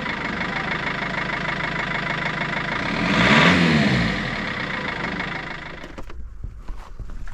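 BMW E46 320d's four-cylinder turbodiesel idling through its exhaust, blipped once about three seconds in so the pitch rises and falls back. Near the end the engine sound falls away and a few sharp clicks are heard.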